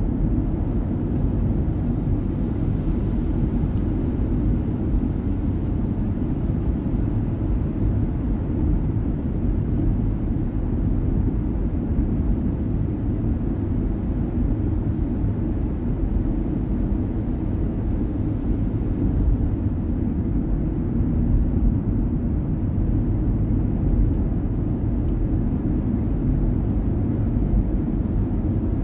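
Steady low rumble of road and engine noise from a vehicle driving through a highway tunnel.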